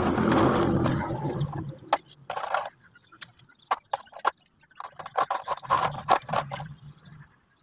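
Steel saw chain links clicking and clinking in irregular bursts as the loose chain is handled and fitted around the chainsaw's guide bar. A loud, rough noise fills the first second or so.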